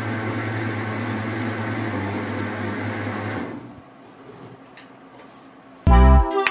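A small electric motor running with a steady hum and whirr, which cuts off about three and a half seconds in. Loud background music comes in near the end.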